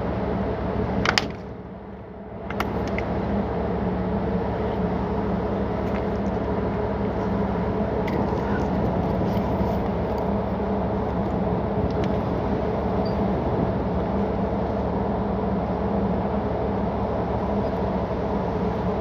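Steady machinery drone of a tanker under way at sea, a low hum with a few held tones. About a second in it drops away for about a second and a half, with a sharp click at each end, then comes back.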